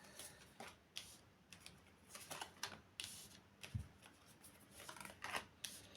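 Tarot cards being shuffled and handled: faint, irregular rustles and light taps.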